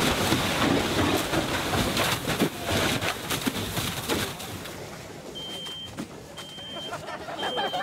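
Fire hose stream hitting a burning room: a loud rush of water and steam with sharp crackles from the fire, easing after about four seconds. Then a smoke detector sounds, a high steady beep about half a second long repeating roughly once a second, set off by smoke from the burning room next door.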